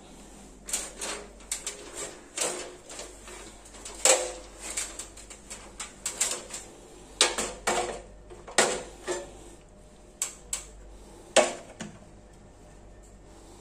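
Wooden boards being handled: a string of irregular knocks and clatters, some sharp and loud, that stop about a second before the end.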